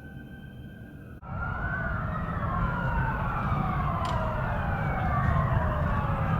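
Emergency vehicle sirens wailing over a low engine and traffic rumble. At first a single fainter siren rises slowly. After an abrupt cut about a second in, several sirens sound at once, louder, their pitches gliding up and down across each other.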